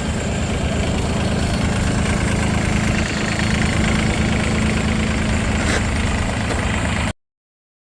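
Lo-Boy tractor engine idling steadily, until the sound cuts off abruptly near the end.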